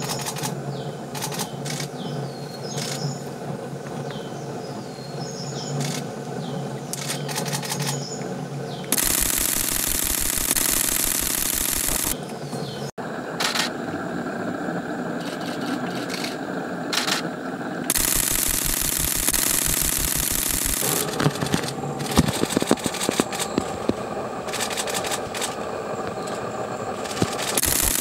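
Long, rapid bursts of camera shutter clicks at a rattling machine-gun pace, with short, high, thin bird calls between the bursts in the first half.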